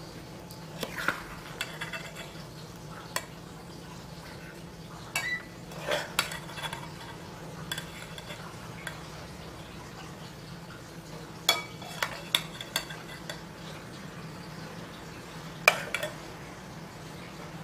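Metal spoon clinking and scraping against a stainless steel pot and a ceramic bowl as braised potatoes are scooped out. The clinks come in scattered clusters, with the loudest one near the end, over a steady low hum.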